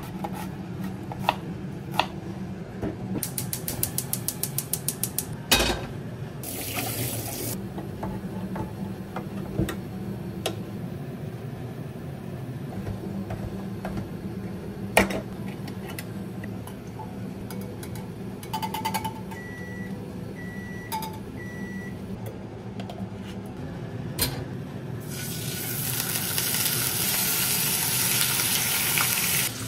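Chef's knife chopping an onion on a cutting board, with a quick run of about eight strokes a second a few seconds in. Midway, a single sharp click as a ring-pull can snaps open, and then three short beeps. Near the end, bacon sizzling loudly as it is laid into a hot frying pan.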